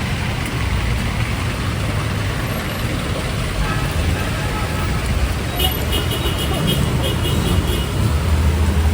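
Road traffic on a wet street in heavy rain: vehicle engines rumbling over a steady hiss of rain and tyres on water. A rapid high-pitched beeping comes in for about two seconds past the middle.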